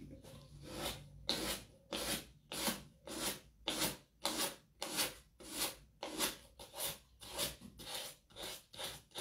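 Rhythmic hand rubbing over decoupage paper laid on an MDF board, about two strokes a second, each a short dry scrape.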